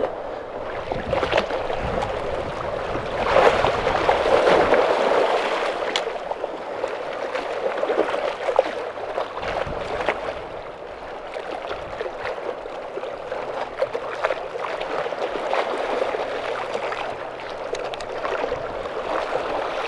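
Seawater sloshing and washing among shoreline rocks close by, swelling and easing over a few seconds at a time, with a few faint clicks.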